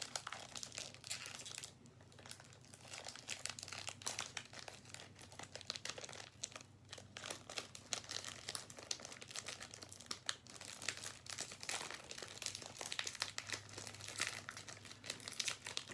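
Crinkly plastic wrapper of a trading card pack being handled and peeled open, with many irregular crackles and small tears.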